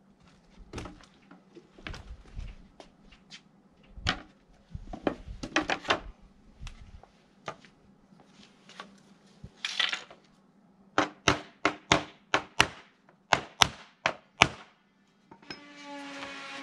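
Scattered knocks, thunks and clicks of hand work on wooden camper panels and fittings during reassembly, then a quick run of sharp taps, about three a second, from about eleven seconds in. Music comes in near the end.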